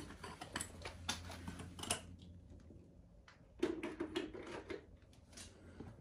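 Quiet, scattered light clicks and knocks as the washing machine and its mains plug are handled and plugged in, with a short duller noise about three and a half seconds in.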